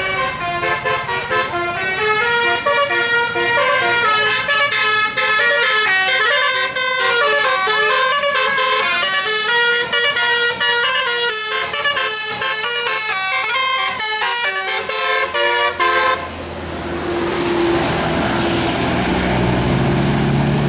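Basuri telolet horn, a multi-note musical vehicle horn, playing a quick melody of changing notes. After about sixteen seconds it stops abruptly and gives way to the rush of a passing vehicle, with a low engine hum near the end.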